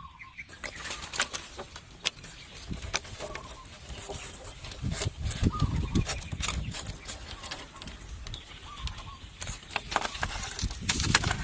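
Irregular knocking, clicking and scraping, heavier in two stretches, with a bird chirping now and then.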